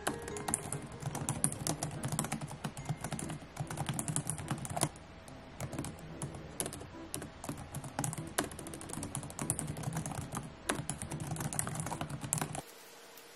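Typing on a laptop keyboard: a fast, uneven run of key clicks that stops abruptly near the end.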